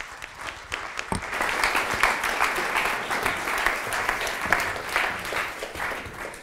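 Audience applauding, swelling over the first couple of seconds and slowly dying away near the end.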